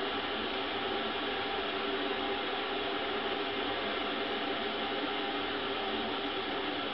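A steady, even hiss with a faint hum underneath, unchanging throughout, as from a fan-like machine running.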